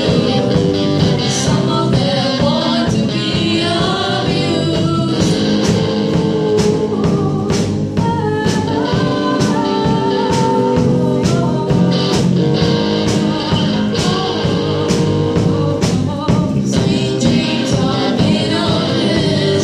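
A song being sung over a rock-style band accompaniment with a steady drum beat.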